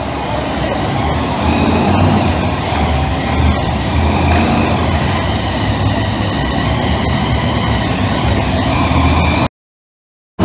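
Monster truck engine running hard under load as the truck climbs onto a row of crushed cars, with a sharp knock about three and a half seconds in. The sound cuts off abruptly about a second before the end.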